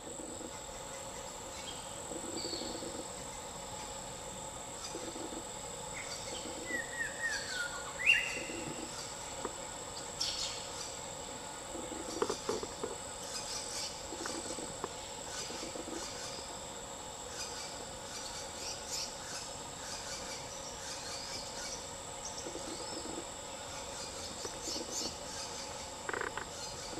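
Forest insects droning steadily on one high pitch, with scattered bird calls: a falling whistle about seven seconds in and a sharp call right after it, the loudest moment.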